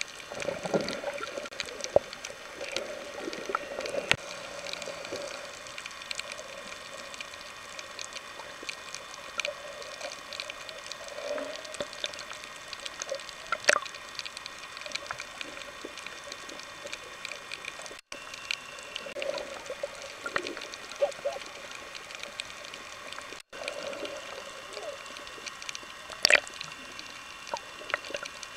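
Underwater sound picked up by a submerged camera while snorkeling: muffled water movement and bubbling, with scattered sharp clicks and crackles over a steady low hum. The sound cuts out briefly twice in the second half.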